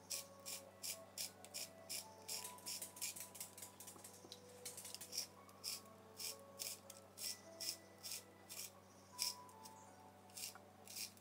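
Handheld twist spiralizer shaving a zucchini into noodles: a crisp cutting scrape with each turn, about two to three a second and unevenly spaced. Faint background music underneath.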